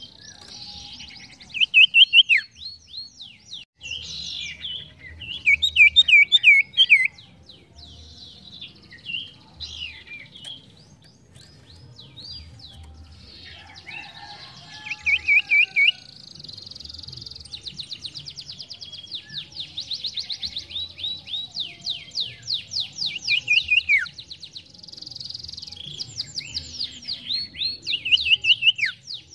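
Caged sirtu songbird singing: bursts of rapid, high chirping trills and quick down-slurred whistles with short gaps between them. The loudest phrases come about two and six seconds in.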